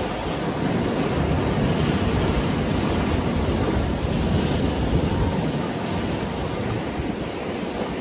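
Rough sea surf breaking and washing over rocks along the shore: a continuous rushing noise with a heavy low rumble that swells and eases a little.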